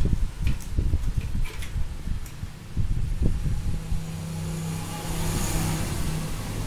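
A motor vehicle's engine running in the background as a low rumble that settles into a steady hum about halfway through. A few light clicks of wires being handled come in the first two seconds.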